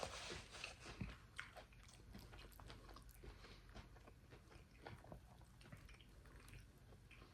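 Faint close-up chewing of a bite of fried chicken with pickle, with scattered small crunches that are a little louder in the first second.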